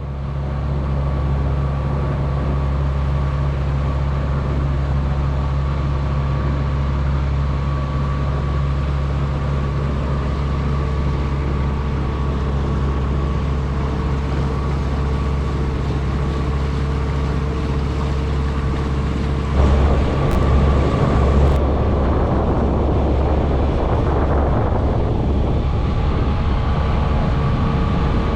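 A sailboat's inboard diesel engine running at a steady speed, a constant low drone. About two-thirds of the way through, a rushing noise swells for a few seconds over it.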